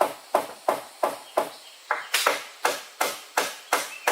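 Steady chopping with a blade, about three strokes a second, each a sharp knock on wood.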